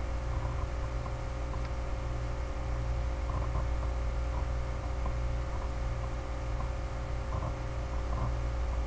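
Steady low electrical hum with an even hiss, the background noise of the recording microphone; a few faint small ticks come and go.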